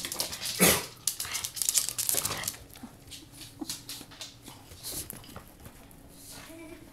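Pug scuffling with a stolen cat toy: a quick run of clicks and rattles for about the first two and a half seconds, then quieter scattered ticks over a faint steady low tone.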